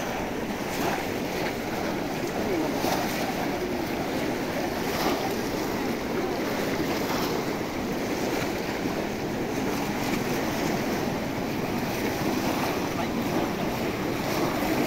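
Many people wading and splashing through shallow muddy water, plunging bamboo cone fish traps, a steady wash of splashing under the general hubbub of a large crowd.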